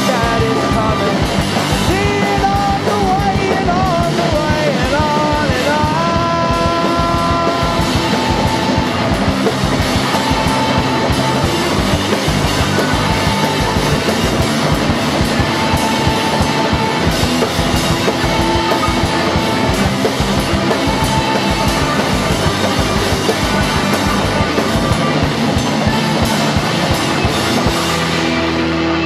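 Live rock band playing loud and fast: drums and guitar keep a dense, pounding beat under a wavering melody line, then a repeated held note. Near the end the band stops and a steady drone carries on.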